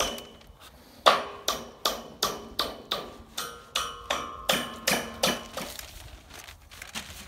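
Hammer blows on metal, about a dozen strikes in a steady rhythm of roughly two and a half a second, each one ringing. The blows fade to lighter taps after about five seconds.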